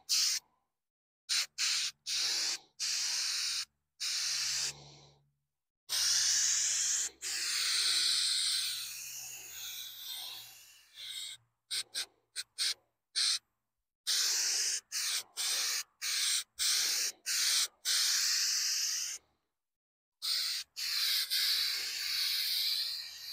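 Textured coating being sprayed in a string of hissing bursts, some a fraction of a second and some several seconds long, with short pauses between them: the first, texture-building coat going on.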